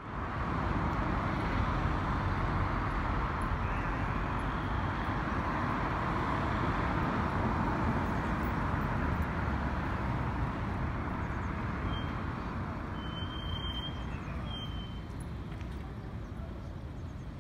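Steady outdoor rumble and hiss, easing slightly toward the end, with three short high chirps about two-thirds of the way in.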